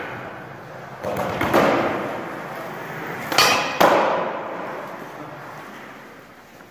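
Skateboard wheels rolling across a hardwood gym floor, with sharp wooden clacks in the middle as the board is popped and lands, the loudest about four seconds in. Every clack echoes in the big hall, and the rolling fades away toward the end.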